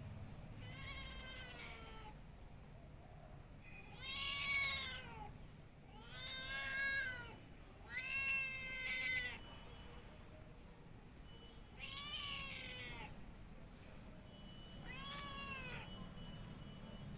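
Domestic cat meowing six times. Each meow is drawn out for about a second and rises then falls in pitch, with pauses between the calls.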